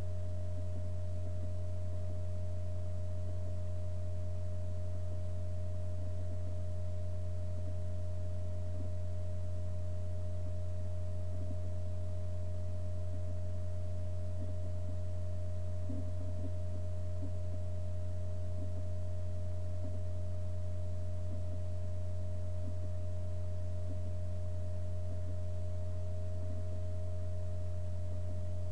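Steady low hum: one constant deep tone, with a few fainter, higher steady tones above it and no change in pitch or loudness.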